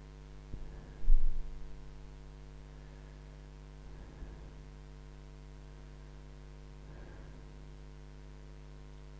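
Steady electrical mains hum from the recording setup. A single low thump comes about a second in, and a few faint soft knocks follow later.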